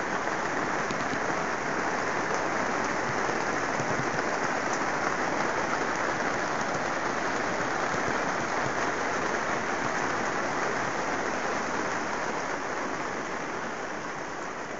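Steady rain pattering on the plastic sheeting of a PVC-framed greenhouse, a dense hiss of fine drop ticks that eases slightly near the end.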